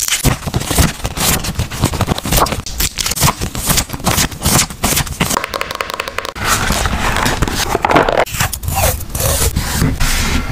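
Close-miked paper crafting: a dense run of crinkling, scraping and tapping as paper and stickers are handled and pressed down.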